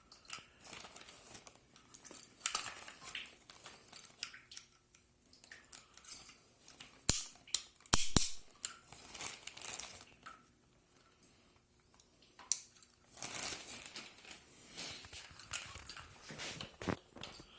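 John Guest push-fit plumbing fittings being handled and put together: irregular rustling with scattered sharp clicks, the sharpest two about seven and eight seconds in.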